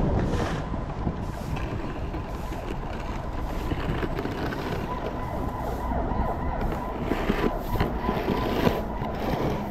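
Steady city traffic noise, with a thin steady high tone held over it.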